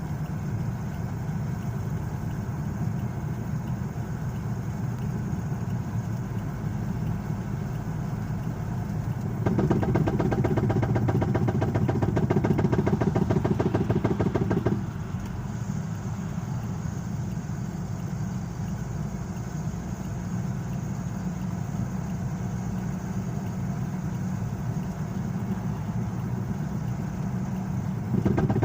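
Car driving with steady road and running noise, and a rapid, even knocking from a wheel whose lug nuts are loose. The knocking grows louder for about five seconds in the middle. The uploader notes that the knock comes when coasting and goes away when on the throttle.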